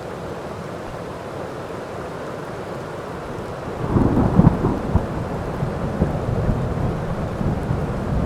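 Steady heavy rain, then a thunderclap about halfway through that breaks with a sharp crackle and keeps rolling and rumbling low over the rain.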